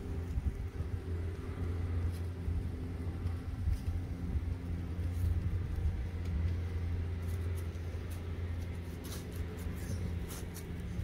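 Steady low mechanical hum and rumble, like a running engine, with faint scattered clicks over it, more of them in the second half.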